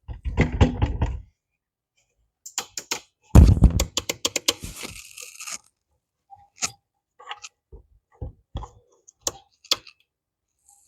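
Handling noise while unboxing a miter saw: two spells of crinkling and rustling, the louder one about 2.5 to 5.5 seconds in, then scattered light knocks and clicks of parts being moved and set down.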